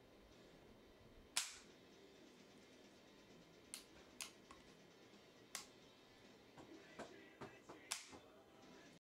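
Metallic clicks from the hammer and crossbolt push-button safety of a Marlin 336CS lever-action rifle being worked by hand: a series of about seven sharp, short clicks, the loudest about a second and a half in and another near the end, over a faint steady hiss.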